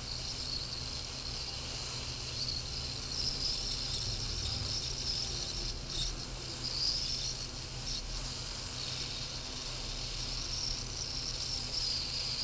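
Hot-air plastic welder hissing steadily as black polypropylene welding rod is fed through its tip and melted into a headlight mounting tab, with a low hum underneath.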